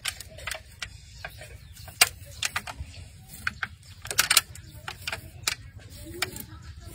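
Cleaver blade cutting and tapping into the skin of a whole pig: a run of sharp, irregular clicks, the loudest about two seconds in and a quick cluster just past four seconds.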